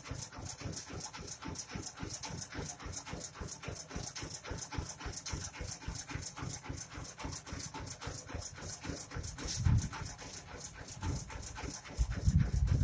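Mobile rice milling machine's single-cylinder diesel engine running with a steady, rapid chugging of about six beats a second. A louder low thump comes partway through, and a heavier low rumble in the last second.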